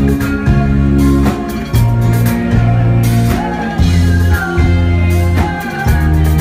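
Live rock band playing loud, with bass guitar notes that change every second or so, steady drum hits and electric guitar, heard through a phone's microphone.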